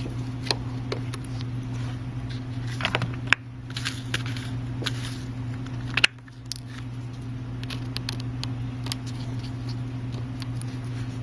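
Light clicking and scratching of a small screwdriver working tiny screws out of an iPhone's internal parts, with one sharper click about six seconds in, over a steady electrical hum.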